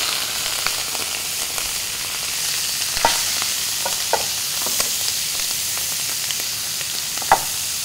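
Squid rings and tentacles searing in oil in a very hot carbon-steel wok: a steady, loud sizzle, with a few sharp pops and clicks.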